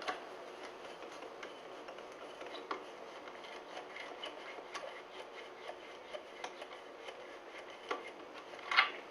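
A tight old screw being turned out of the wooden lamm guide of a 1942 Macomber loom: faint rubbing and scraping with light clicks, and a louder scrape near the end.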